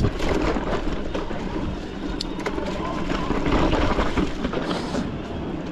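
Electric mountain bike ridden along a dirt trail: a steady rush of tyre and riding noise with frequent sharp rattles and knocks from the bike over the bumpy ground, a little louder past the middle.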